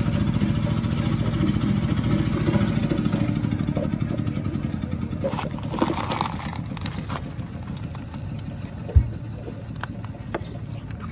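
An engine runs steadily, then fades away over the middle of the stretch. Scattered clicks, slaps and scrapes follow as live catfish are handled on a wet floor, with one sharp thud about nine seconds in.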